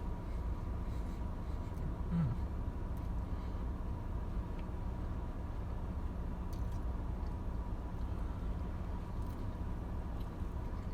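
A person quietly chewing a bite of a toasted sandwich, with a few faint clicks, over a steady low rumble and a faint steady hum.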